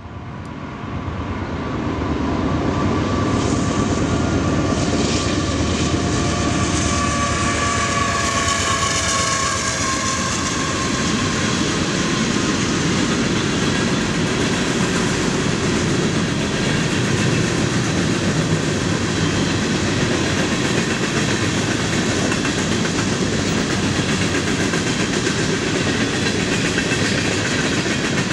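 Union Pacific coal train's hopper cars rolling past, a steady rumble and clatter of steel wheels on rail, fading in over the first two seconds. In the first half, high ringing tones slide slightly in pitch and then die away.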